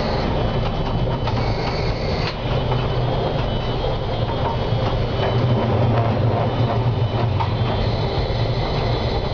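Konstal 105Na tram running along the track, heard from the driver's cab: a steady low rumble of motors and wheels on the rails, with a few clicks as the wheels pass over rail joints. A high whine starts about a second in and cuts off abruptly about a second later.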